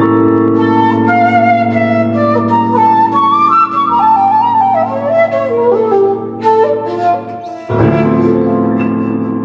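Seven-hole 1.6-shaku shakuhachi playing a melody that steps downward over sustained piano chords. About eight seconds in the piano strikes a new low chord that rings on and begins to fade.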